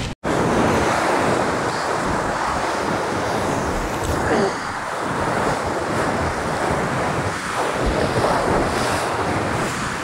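Ocean swell surging and washing over a rock ledge in steady, rising and falling waves of noise, with wind buffeting the microphone.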